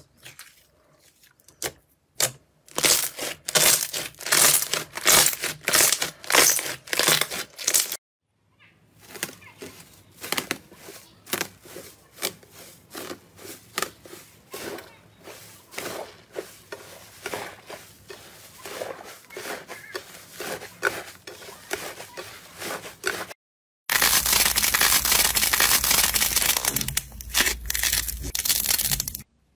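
Hands squishing and pressing slime: quick wet clicks and pops, then many small crackles from pink fluffy slime worked with gold leaf. Near the end, a dense steady crackling as a textured slime is pulled and torn apart.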